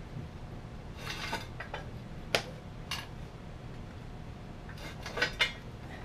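Small metal motorcycle parts and tools clinking as they are handled: a brief rattle about a second in, sharp clinks a little after two and near three seconds, and two more close together near the end.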